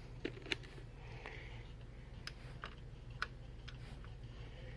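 A few light, irregular clicks and taps of multimeter test probes touching the leads of a diode on a TV power-supply board during a short-to-ground check, over a faint steady low hum.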